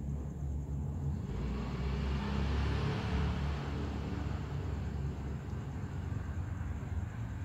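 Steady low background rumble, with a rushing hiss that swells from about a second in, is loudest around three seconds and fades away by about six seconds.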